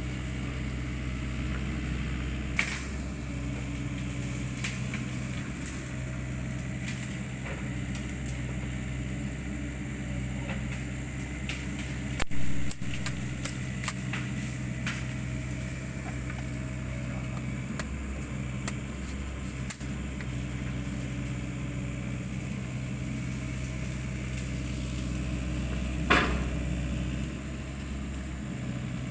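A steady low hum, like a motor idling, with a few sharp knocks; the loudest knock comes about twelve seconds in and another near the end.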